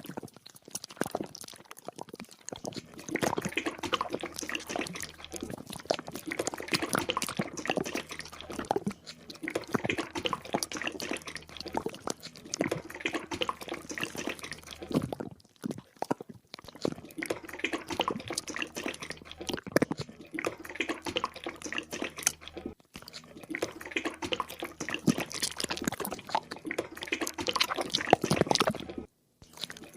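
Fresh engine oil being poured into a newly repaired engine, glugging and splashing unevenly, with a few brief breaks.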